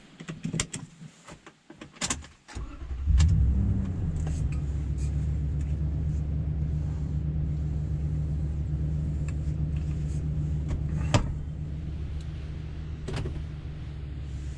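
Seatbelt clicks and rustling in the cab, then about three seconds in the Toyota Tundra TRD Pro's engine starts, flares briefly and settles into a steady idle, heard from inside the cab. A sharp click stands out about eleven seconds in.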